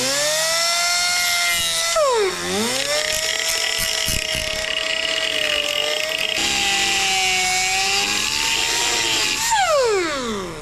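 Electric power tool spinning up and running, its pitch dipping as it bites into the stainless steel bung about two seconds in, then winding down with a falling whine near the end. The tool is putting a curve into the bung's flat face so it will sit flush on the intake pipe.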